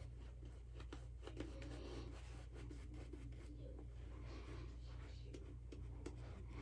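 Faint scratchy rustling and small clicks of handling over a steady low hum.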